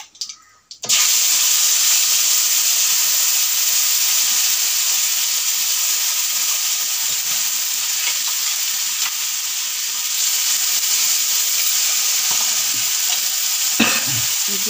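Ground spice paste for a fish curry tipped into hot oil in a cooking pot, bursting into a loud sizzle about a second in and frying steadily. A short knock near the end.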